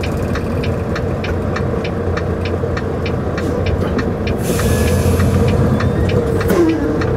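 Volvo semi-truck's diesel engine idling, heard in the cab, with the turn signal clicking in an even rhythm while waiting to turn. About four and a half seconds in there is a brief hiss.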